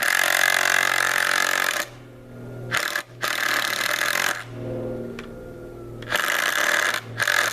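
Impact driver hammering in bursts: one run of about two seconds, then several shorter runs, with short pauses between them.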